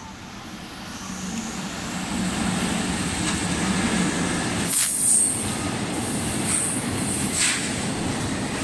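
Freight train of tank wagons hauled by two EF64 electric locomotives passing along a station platform: a rumble of wheels on rail that builds over the first two seconds, then holds steady. There are brief high-pitched wheel squeals about five seconds in and twice more near the end.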